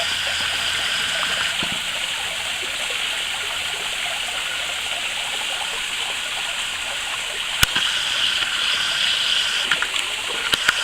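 Small waterfall running steadily, the falling water splashing with an even hiss. There is a single sharp knock about three-quarters of the way through, and a few light clicks near the end.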